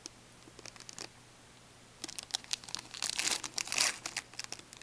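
Foil wrapper of a hockey card pack crinkling as it is opened by hand: a few faint crackles at first, then louder, denser crinkling from about two seconds in.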